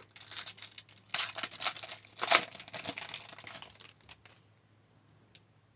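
A trading card pack's wrapper being torn open and crinkled: a string of rips and rustling that stops about four seconds in.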